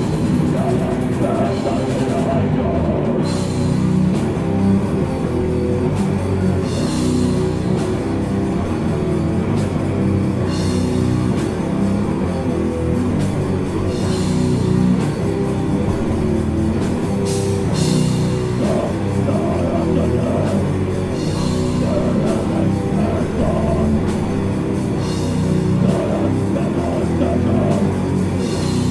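Death metal band playing live: heavy, continuous guitars and drums, with a cymbal crash every three to four seconds.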